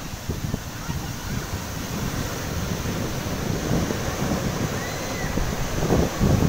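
Sea surf washing up onto a sandy beach, heard under wind buffeting the microphone, with a strong gust of wind noise near the end.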